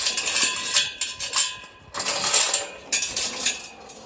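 Metal clattering and clanking from a steel pipe-panel livestock pen gate and its hanging chain being handled, with short ringing rattles in three bursts.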